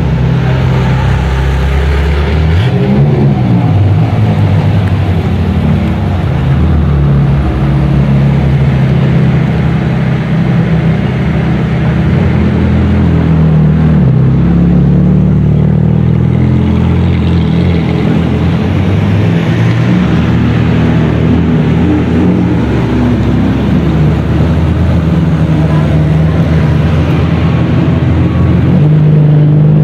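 Ferrari sports car engines running at low speed as the cars crawl past one after another, a steady deep rumble. The engine pitch rises briefly a few times.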